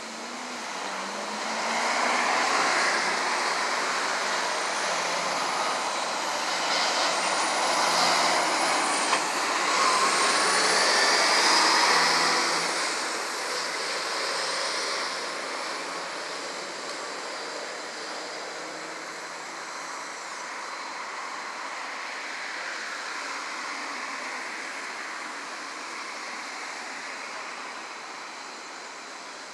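Street traffic at an intersection: engines pull away and vehicles, a truck among them, drive past, loudest for the first dozen seconds. After that the noise settles to a steadier, quieter traffic hum.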